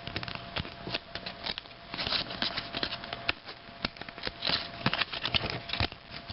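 Football trading cards being flipped through and slid over one another by hand: irregular light clicks and brief rustles.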